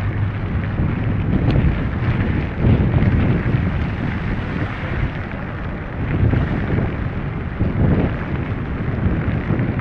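Wind buffeting the microphone: a gusty low rumble that swells and eases every second or so.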